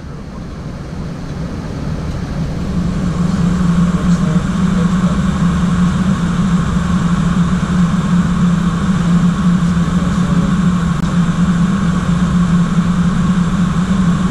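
Steady noise inside an airliner's flight deck in flight: a low drone with a rushing hiss over it, fading in over the first three seconds.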